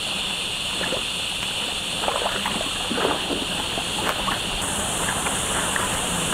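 Creek water running and sloshing, with a few short splashes or knocks between about two and four and a half seconds in, over a steady high hiss.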